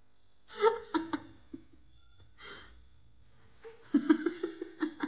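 Laughing in two bursts: a short laugh about half a second in, then a longer run of choppy giggles about four seconds in.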